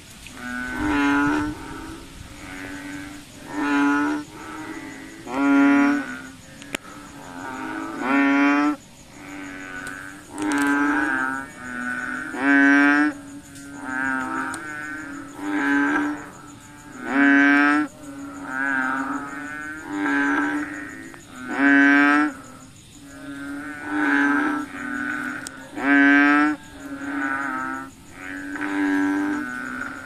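Frogs calling in a chorus: short, low, pitched calls, each under a second, repeated about every one to two seconds, with louder and softer callers alternating.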